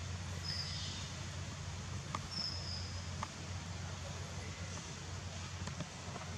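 Steady outdoor background hum and hiss, with two brief high-pitched squeaks, one about half a second in and one about two and a half seconds in, and a couple of faint clicks.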